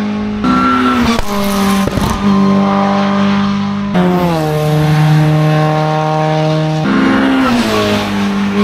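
Hill-climb race car engine running hard at high revs, its pitch holding steady and then jumping in sudden steps as it changes gear. There are a few sharp cracks from the exhaust about one to two seconds in.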